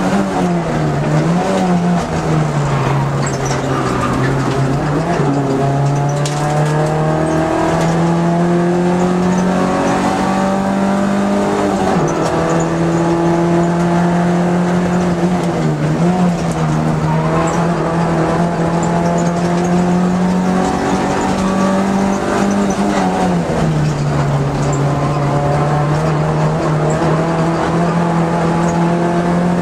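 Vauxhall Nova GTE race car's engine heard from inside the cabin, pulling hard on track. The note holds level for long stretches, dropping lower several times and climbing back as the driver works through the lap.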